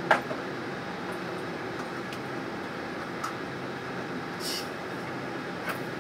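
Steady cabin hum inside a Boeing 747-8 taxiing slowly at idle: engine and air-conditioning noise with no changes in pitch. A sharp click comes just after the start, and a brief hiss about four and a half seconds in.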